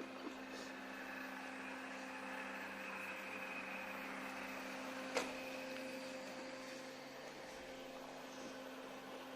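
Robot vacuum cleaner running with a steady motor hum, and one sharp click about five seconds in.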